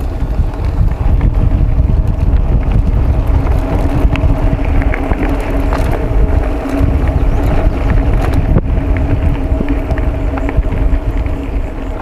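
Mountain bike rolling along a dirt road: wind buffeting the handlebar microphone and the rumble of knobby tyres on packed dirt and loose stones, with a steady hum and small rattles and ticks from the bike.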